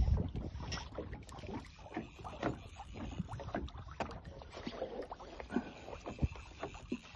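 Small waves lapping and slapping against the hull of a boat drifting on open water: irregular short splashes and knocks, with a low wind rumble underneath.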